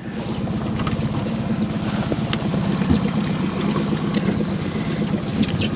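Boat motor running steadily at trolling speed, with a constant low hum and a few faint clicks over it.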